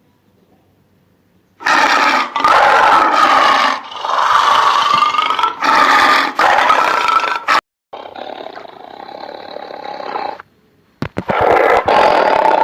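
Tiger roaring: a run of long, loud roars starting about two seconds in, a quieter stretch, then another loud roar near the end.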